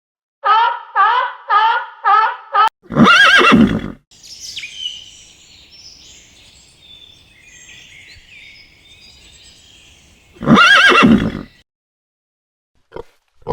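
A horse whinnying: a quavering run of five short pulses ending in a loud, fuller call, and a second loud call about ten seconds in. Faint bird chirping fills the gap between the calls.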